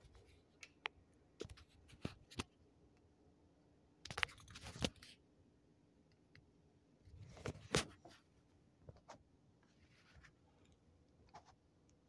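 Quiet room with scattered faint clicks and rustles from the recording phone being handled and moved. The noises cluster about four seconds in and again around seven to eight seconds.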